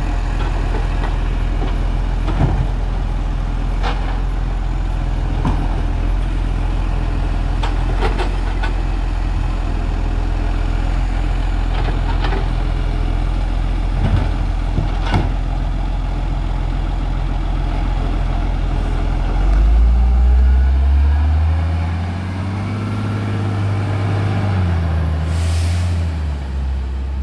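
Side-loading garbage truck running steadily while its automated grab arm empties wheelie bins, with scattered clunks and knocks of bins and lids. About twenty seconds in the engine revs up and the truck pulls away, its engine note rising and falling through the gears, with a short air hiss near the end.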